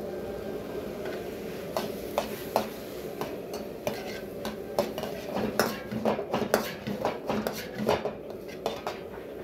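Metal ladle clanking and scraping against a wok while shrimp, peas and carrots are stir-fried. The clanks come in a quick, irregular run from about two seconds in until near the end.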